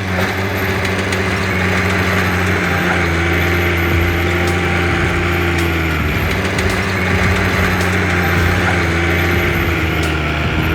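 Diesel engine of heavy earthmoving machinery running steadily under load, its pitch shifting slightly about six seconds in.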